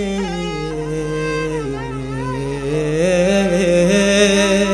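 Male voice singing one long, drawn-out note of a latmiya-style lament, the pitch sinking slowly in the middle and then climbing back up.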